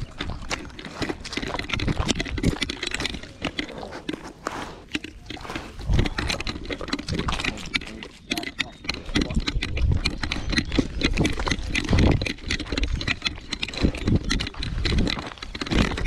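A Weimaraner moving about and sniffing over gravel and grass, picked up by a camera on its collar: crunching, rustling and irregular thumps and knocks of the collar.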